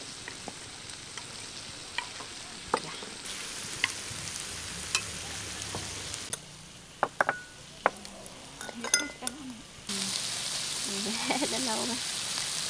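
Slices of beef sizzling on a dome grill pan, with chopsticks clicking against the meat and pan as the slices are turned. The sizzle grows louder a few seconds in, drops about halfway, and is loudest near the end.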